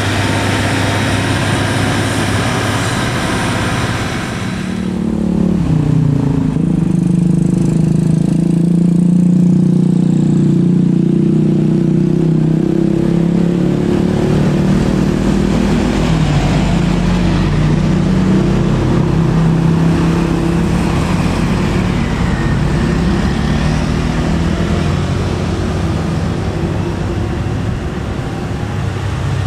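Traffic noise for the first few seconds, then a heavy diesel truck engine labouring up a grade close by, a loud steady drone whose pitch dips and recovers several times.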